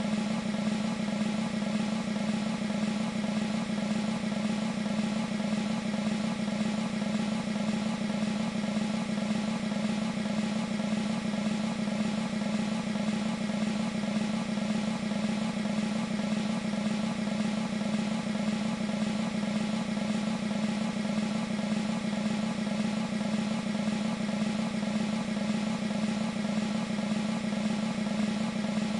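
Synthesized military snare drum roll from an E-mu Proteus 2 sound module's Percussion 1 patch: a continuous, even roll of rapid strokes held at a steady level throughout.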